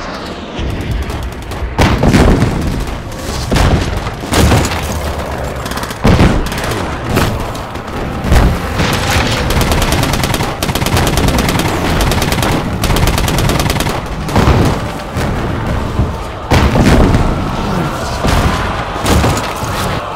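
Battle sound effects: bursts of rapid automatic gunfire and single shots mixed with heavy booms of explosions. A rising tone comes in near the end.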